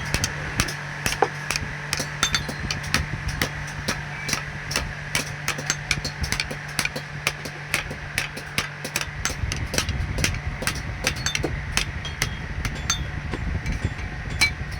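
Hammer blows on hot steel at an anvil while a crowbar is forged by hand: sharp, ringing strikes about two to three a second, somewhat irregular, over a steady low hum.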